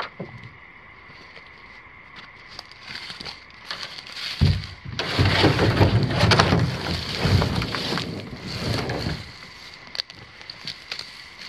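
A canoe hull being rolled over on the ground: a hollow thump about four seconds in, then several seconds of scraping and rubbing of the hull against grass, scrub and branches. After that, lighter rustles and clicks of brush being pushed through.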